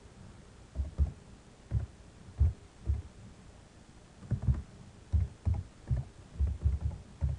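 Keystrokes on a computer keyboard, typed in an irregular run with a short pause partway through, coming through as dull low thuds.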